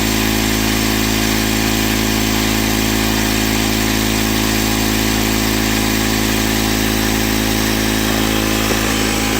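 Ryobi R18I 18V ONE+ cordless tire inflator running at a loud, steady hum as its small compressor pumps air into a car tire, with a slight shift in pitch near the end.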